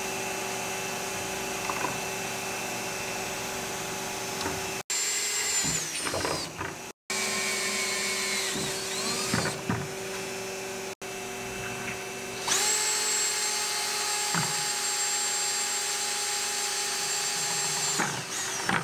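Electric drill boring truck-mounting holes into a 3D-printed recycled carbon-fibre ABS longboard deck. The motor whines steadily in several stretches with short breaks between them, and its pitch jumps up sharply about twelve seconds in.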